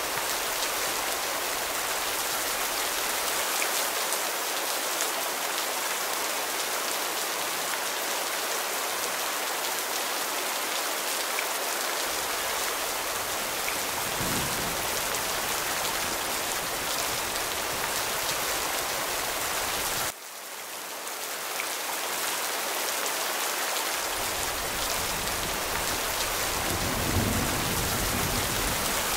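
Steady rain falling, an even hiss of many drops, with low thunder rumbles about halfway through and again near the end. About two-thirds of the way in the rain sound drops away suddenly and swells back up over a few seconds, like a loop splice.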